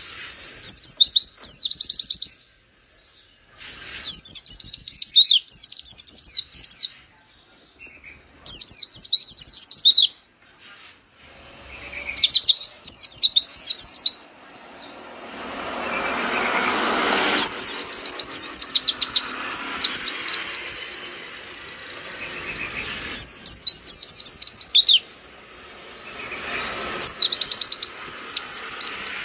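Pleci (white-eye) in full song: rapid, high-pitched bursts of quick chattering notes, in phrases of one to two seconds repeated with short pauses. A broad background noise swells for a few seconds midway.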